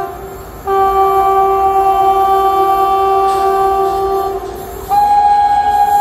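Indian Railways locomotive air horn on an approaching train, sounding long steady blasts of several tones at once. One blast starts just under a second in and holds for about three and a half seconds. After a short dip, a second, shriller blast at a slightly higher pitch starts about five seconds in and keeps going.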